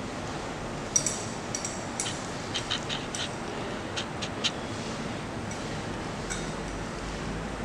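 Light glassy clicks and taps, about a dozen in a few seconds and then one more later, from a glass pipette and rubber pipette bulb being handled in a glass beaker while liquid is drawn up. Under them is a steady room hiss.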